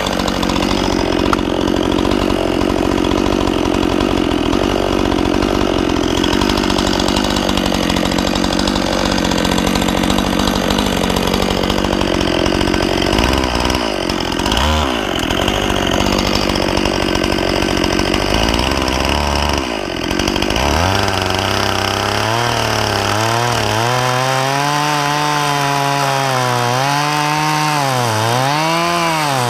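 Stihl MS 261 C-M two-stroke chainsaw cutting into a log under load, its engine note dipping and rising briefly twice midway. In the last several seconds it runs with its engine pitch wavering up and down as the throttle is worked.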